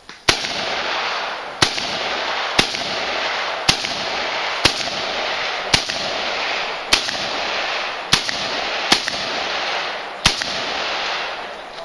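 AR-15 rifle fired ten times in evenly paced single shots about a second apart, over a steady rushing noise between the shots.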